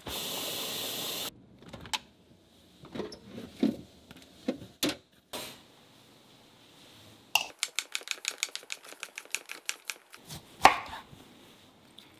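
A short burst of hiss that cuts off abruptly, then scattered knocks. A quick, even run of clicks at about seven a second follows, and near the end comes one sharp knock, the loudest sound.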